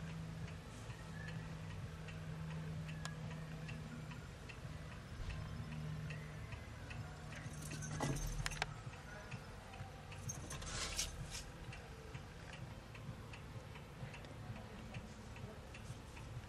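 Faint, regular ticking, about two ticks a second, over a low steady hum. Around the middle come a couple of louder rustling bumps as the camera is moved.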